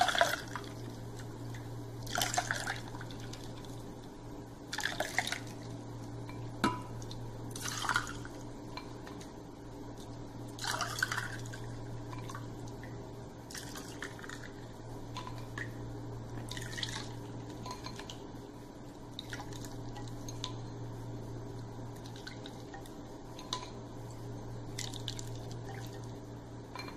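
Cucumber juice poured from a ladle into glasses of ice: a short splashing pour every two to three seconds, louder in the first half and fainter later. A steady low hum runs underneath.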